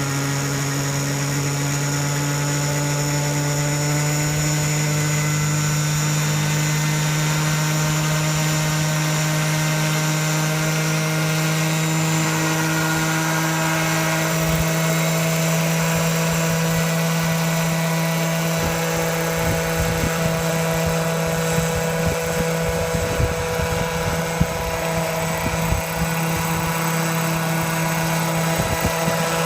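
Large-scale RC helicopter driven by a Zenoah G26 two-stroke petrol engine, running with its rotor turning. The pitch rises slightly over the first few seconds and then holds steady, with gusty low rumbles in the last third.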